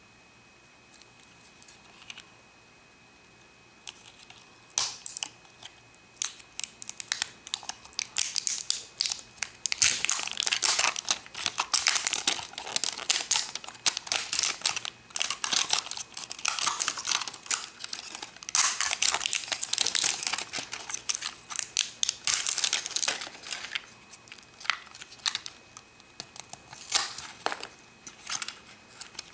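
A plastic toy wrapper being peeled and torn off, crinkling and crackling densely from about five seconds in. It thins to a few scattered crinkles and sharp plastic clicks near the end.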